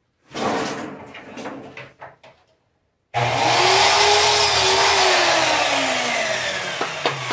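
Clattering as pieces of wood are handled, then about three seconds in a power saw starts abruptly and runs loudly, its whine slowly falling in pitch, as it cuts a piece of scrap wood to size for a hive's entrance porch.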